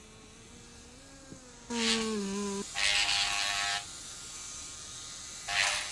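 A low pitched electric-sounding buzz, faint at first, grows louder about two seconds in and drops slightly in pitch, then gives way to two loud hissing bursts.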